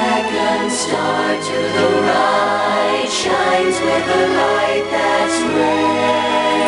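Music with a choir singing sustained notes over an instrumental accompaniment.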